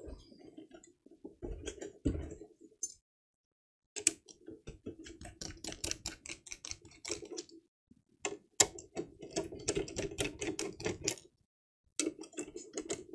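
A screwdriver backing screws out of an Xbox Series X's base: rapid clicking in bursts of a few seconds, with short pauses between them.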